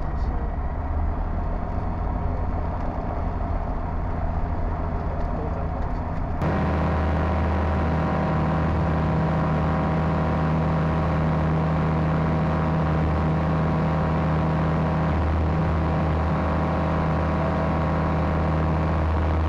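Light aircraft's Rotax 912 engine and propeller, heard from inside the cockpit. The engine first runs on the ground with a rough rumble. About six seconds in, an edit cuts to it running steadily in flight, with an even, constant drone.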